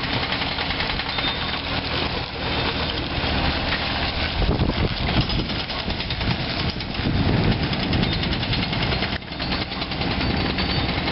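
The Yanmar three-cylinder diesel engine of a 2007 Yanmar VI020 mini excavator runs steadily while the machine turns on its tracks. It grows louder twice in the middle.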